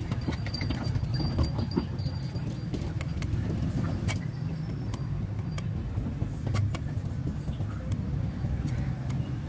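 Curved sickle blade cutting and knocking at the stick ends of a woven wooden basket: irregular sharp clicks and snaps every second or so. A steady low rumble runs underneath.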